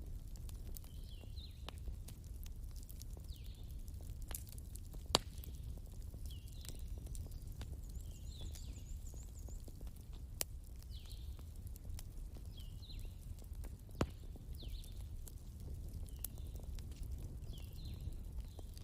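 Wood fire burning with a steady low rumble and occasional sharp crackling pops, the loudest about five seconds in. A short high chirp recurs about once a second over it.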